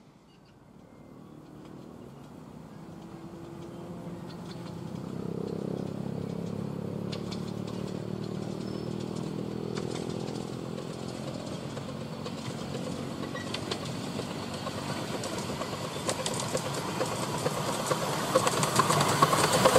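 A miniature 10¼-inch gauge steam locomotive hauling passenger coaches approaches; its running and wheel noise grow steadily louder, with clicks and clatter building in the last few seconds as it draws close.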